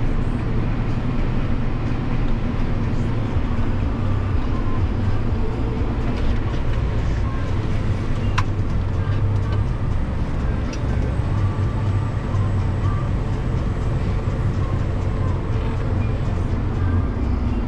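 John Deere 7250R tractor's six-cylinder diesel engine running steadily under load, heard as a deep, even drone inside the cab. A single sharp click comes about eight seconds in.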